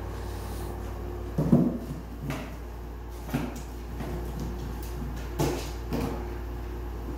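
Kittens playing in an empty cardboard box, knocking and bumping it: several dull thuds, the loudest about a second and a half in, over a steady low hum.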